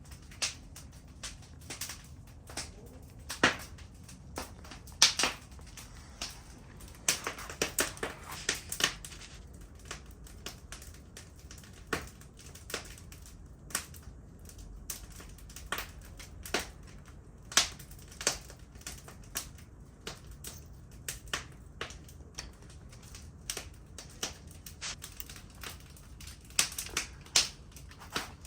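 Irregular sharp clicks and light metallic taps of hand tools working on an engine, some in quick runs of several clicks.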